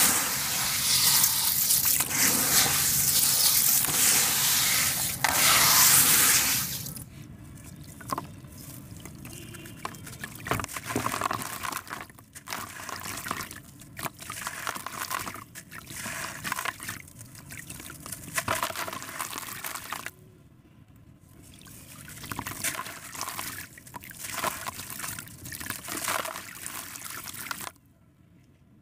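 Wet sand-cement crumble scrunched and squished by hands in a shallow basin of water, a loud, dense gritty hiss. After about seven seconds it gives way to quieter, irregular splashes and trickles as chunks of sand-cement are crumbled into a bucket of water.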